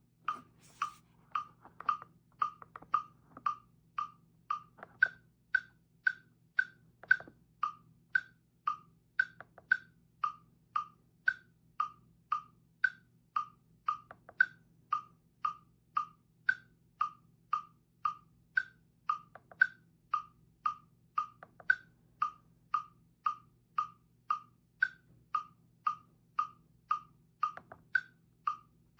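Donner digital metronome sounding its electronic click, a short pitched beep repeating evenly at a little under two a second, with some beats sounded at a higher pitch as accents.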